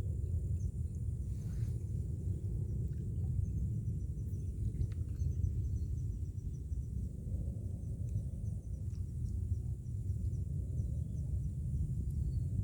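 Outdoor ambience: a steady low rumble with faint, rapid high chirping above it and a few faint clicks.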